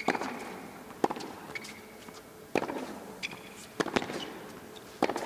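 Tennis rally on a hard court: a ball struck back and forth with rackets, sharp pops about five times, roughly every one to one and a half seconds.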